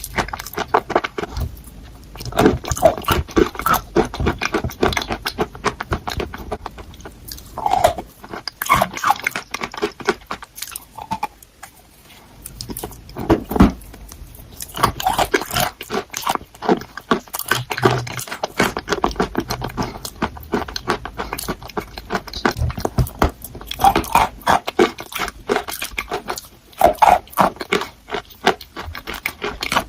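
A person biting and chewing crunchy chalk: dense runs of crisp crunching and cracking, in bursts with short pauses between them.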